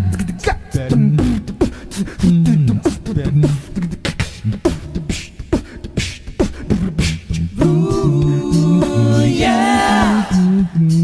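A cappella vocal group in a wordless break: beatboxed drum sounds (kicks, snares, hi-hat clicks) over a sung bass line. Backing voices come in as a held chord about three-quarters of the way through and bend in pitch near the end.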